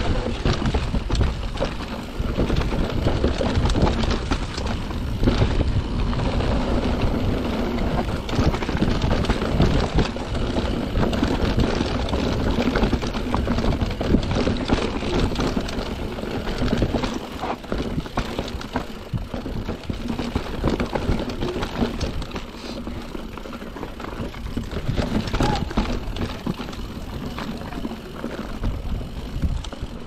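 Mountain bike riding down a rocky dirt trail: the tyres run over dirt and rock, and the bike rattles and knocks over the bumps.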